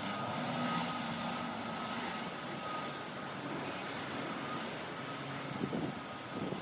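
Aircraft engine noise: a steady rushing run with a thin, constant high whine over it.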